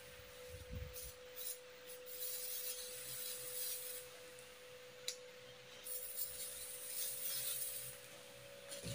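Geister ESU-X 400-HT electrosurgical unit sounding its steady activation tone. Over the tone, a rasping hiss comes in two stretches of about two seconds each as the active electrode sparks, which is the CUT/COAG output under test.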